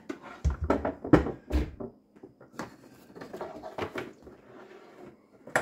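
Knocks and clatter as a removed garbage disposal unit and hand tools are moved about on the floor of a sink cabinet. There are a few heavy thumps in the first two seconds, then lighter scattered clicks.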